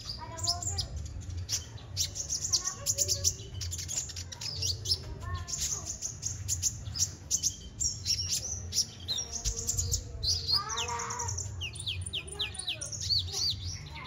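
A caged male crimson sunbird (kolibri ninja) of the Kalimantan type singing in a fast, unbroken run of high, thin chirps and quick sweeping notes. Lower warbling notes come in now and then, over a steady low hum.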